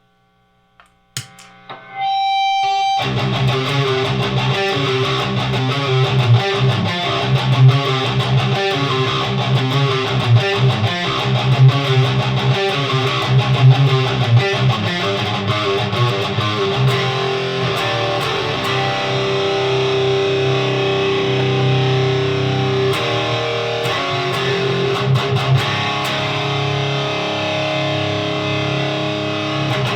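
Electric guitar played through a Noise Pollution Plush Box overdrive pedal into a Randall high-gain amplifier: heavily distorted metal riffing. It starts loud after about two seconds of near silence and a short held note.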